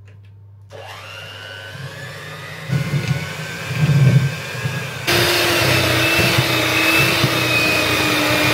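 Kenwood electric hand mixer running, its beaters creaming butter and sugar in a mixing bowl. The motor whine starts about a second in, a low uneven churning of the beaters through the mixture joins it, and the sound gets louder about five seconds in.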